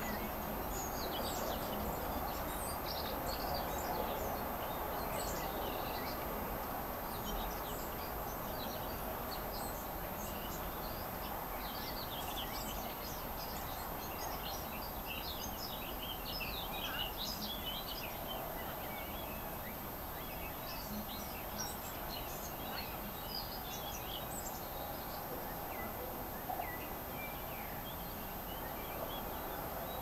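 Small songbirds chirping and twittering, many short quick calls overlapping, thickest in the first half, over a steady outdoor background noise.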